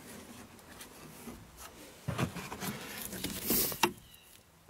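Rubbing and scraping with a few knocks as the generator's housing lid is lifted open, busiest in the second half, with the loudest scrape shortly before the end.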